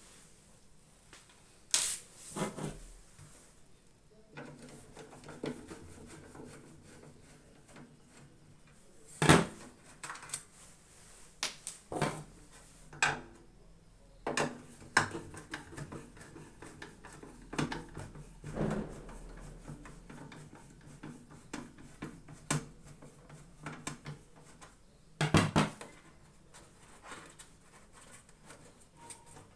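Irregular knocks, clicks and metallic clatter as a microwave oven's sheet-metal body and parts are handled and taken apart, with the sharpest knocks about nine seconds in and again near 25 seconds.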